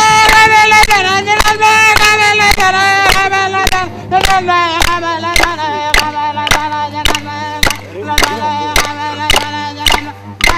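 Traditional song: a voice holds long notes that step down in pitch, over a steady beat of sharp struck clicks about two a second.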